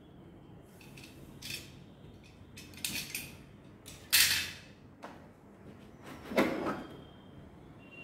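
A few short clatters and scrapes of hard objects being handled and set down, the loudest about four seconds in.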